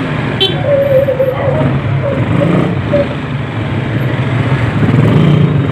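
Road traffic noise heard from a motorcycle in slow traffic: a steady low rumble of car and motorcycle engines, with a short click about half a second in.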